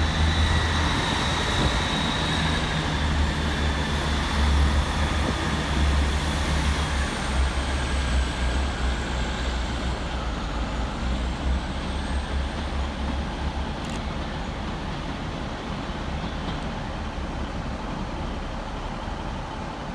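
Two coupled Class 158 diesel multiple units pulling out, their underfloor diesel engines running with a deep steady drone that fades away over the first dozen seconds as the train leaves, with a faint high whine falling in pitch partway through.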